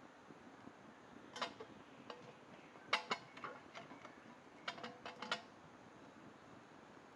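Sharp knocks and clicks with a brief ringing tone, in three quick clusters: one about a second and a half in, a second around three seconds in, and a third near five seconds.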